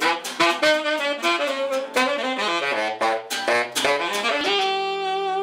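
Tenor saxophone and strummed acoustic guitar playing a fast jazz ending: a run of quick notes over rhythmic chord strums, settling into a long held final note about four and a half seconds in.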